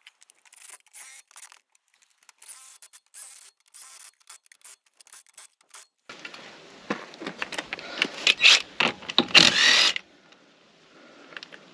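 Faint clinks and scrapes of lug nuts and a wheel being handled, then about six seconds in an impact wrench runs in several short bursts with a rising whine, running the lug nuts home on a truck wheel.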